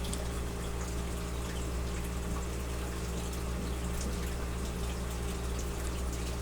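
Steady low hum with an even hiss behind it and no singing: background noise of a cellphone recording.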